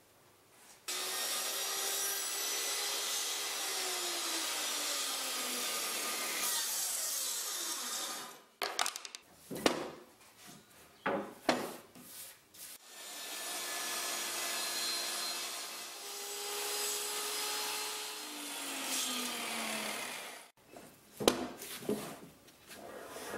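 Table saw ripping freshly chainsaw-milled boards lengthwise, in two long cuts of about seven seconds each. Between the cuts and after the second one there are short knocks and clatter as the boards are handled on the saw table.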